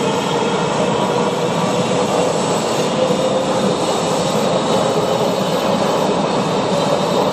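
Washington Metro train running, heard from inside the railcar: a loud, steady rumble of the car on the rails with a faint steady hum.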